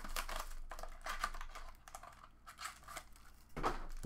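Plastic wrapping on a sealed trading-card box crinkling and tearing as it is opened by hand, a busy run of quick crackles and clicks.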